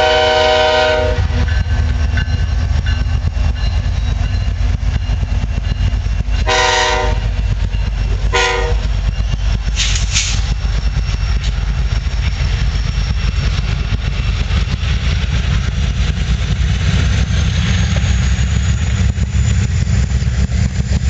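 BNSF diesel freight locomotives passing close by with a steady heavy rumble of engines and wheels on rail, while the air horn sounds three times: a long blast that ends about a second in, another at about six and a half seconds, and a short one at about eight and a half seconds. Coal hopper cars then roll past with a continuous rumble.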